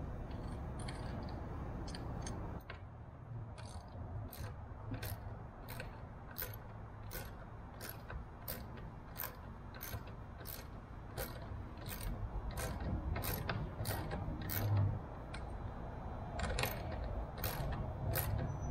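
Ratchet wrench clicking in a steady run, nearly two clicks a second, starting a few seconds in, as bolts holding the tailwheel assembly are tightened.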